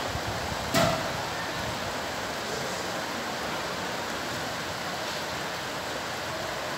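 Steady hiss of rain and wind in a storm, with one sharp knock about a second in.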